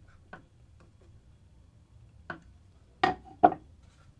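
Screwdriver and hands working a screw into the plastic stock of an Ares Amoeba Striker airsoft rifle: a few faint clicks, then two sharper knocks about half a second apart.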